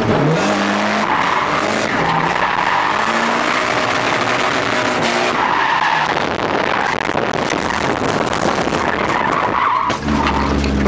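Car engine revving hard with tyres squealing and skidding as the car drifts through a corner, heard from inside the cabin; the engine pitch climbs and drops with throttle changes, then falls to a low steady idle near the end.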